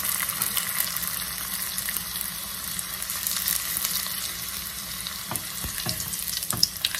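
Food deep-frying in hot oil in a small stainless steel pot: a steady sizzle. In the second half a wooden spatula turns the piece, with a few short knocks against the pot near the end.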